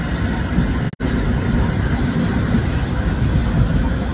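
Steady noise inside a car driving on a rain-soaked road: tyres on wet pavement and rain on the car, with a momentary dropout about a second in.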